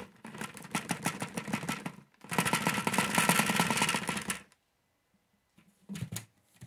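Small plastic diamond-painting drills rattling and clattering together, a dense rapid clicking in two loud bursts that stops about four and a half seconds in. A short knock comes near the end.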